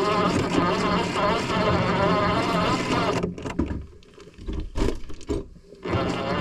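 A steady motor-like hum whose pitch wavers slightly. About three seconds in it cuts out into short bursts with gaps, then comes back steady near the end.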